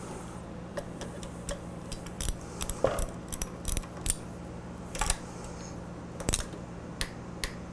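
Irregular sharp metallic clicks and clinks of hand tools: a socket ratchet being fitted to and turned on the upper triple-clamp pinch bolt of a motorcycle fork. A low steady hum runs underneath.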